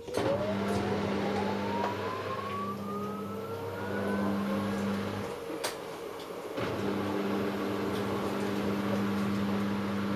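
Hoover H-Wash 500 washing machine running, its motor whine rising steadily in pitch for about five seconds as the drum speeds up, over a steady low hum. The hum cuts out with a click about five seconds in and comes back a second later.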